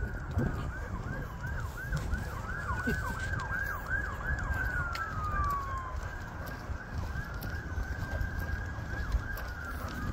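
Emergency vehicle siren: a rapid yelp, the pitch sweeping up and down several times a second, for the first four seconds or so, then slower rising-and-falling wails.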